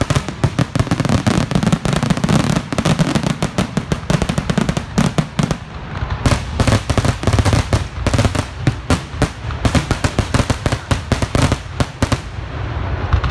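Fireworks grand finale: aerial shells bursting in a dense barrage, many bangs a second over a continuous low rumble, thinning out near the end.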